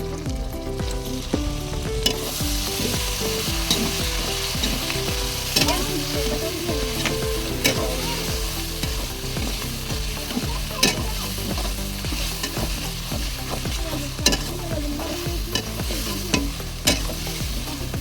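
Curry ingredients frying and sizzling in a hot pan while being stirred, with the spatula clicking and scraping against the pan now and then. The sizzle grows louder about two seconds in.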